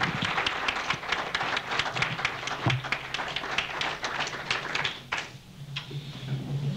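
Small audience applauding with hand claps, the clapping dying away about five seconds in.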